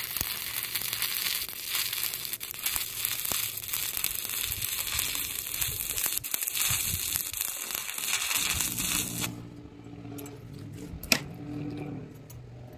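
Stick (arc) welding on thick steel plate: a flux-coated electrode strikes an arc and runs a steady, crackling arc for about nine seconds while laying a wide second pass over the first bead, then the arc cuts off suddenly. A single sharp click follows a couple of seconds later.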